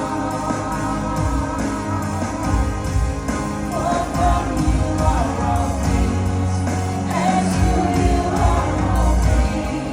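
Live church worship music: a band playing steady sustained chords over a bass line, with singing voices.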